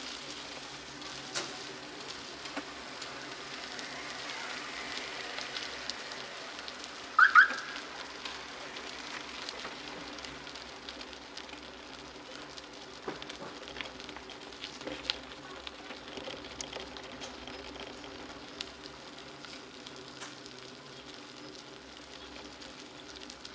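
Bicycle tyres rolling on wet asphalt, a steady hiss with scattered small clicks and rattles. About seven seconds in comes one short, loud squeal.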